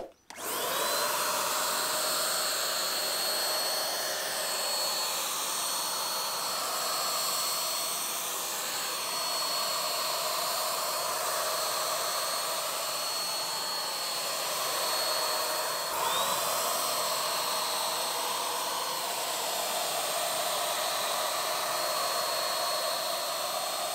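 Wagner W100 handheld HVLP paint sprayer running and spraying paint: a steady whirring hiss from its turbine with a high whine. The whine rises as the motor spins up just after the start, and again about two-thirds of the way through.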